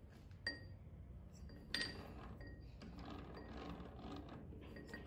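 Two light metallic clinks with a short ring, about half a second and two seconds in, then faint scraping and rubbing of metal as a threaded metal workpiece is slid into the jaws of a three-jaw lathe chuck, with the lathe stopped.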